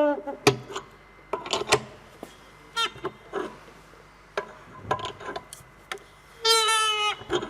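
A nut whistle giving short squeaks among clicks and rasping sounds, then one longer shrill squeal, about two-thirds of a second, near the end.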